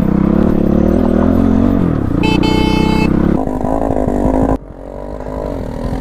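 Motorcycle engine running with its pitch rising and falling, and a horn beeped once briefly about two seconds in. About four and a half seconds in the sound drops suddenly to a quieter engine.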